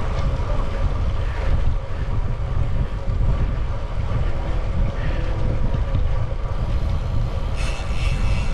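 Wind buffeting the microphone of a camera on a moving bicycle: a steady, heavy low rumble, with a brief brighter hiss near the end.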